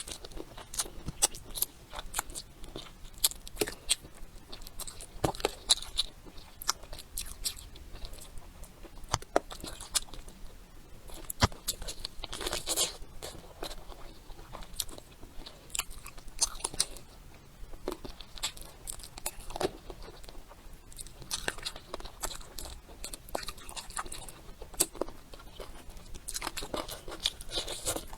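Close-miked mukbang eating: a person biting and chewing food, with many sharp wet clicks and crunches scattered through, and a few short noisier smacking or slurping sounds.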